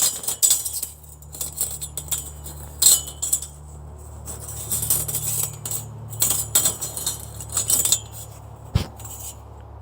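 Steel bandsaw mill blade being twisted and folded into a coil by hand, its thin band and teeth clinking and rattling in bursts. A low steady hum runs underneath, and a dull thump comes near the end.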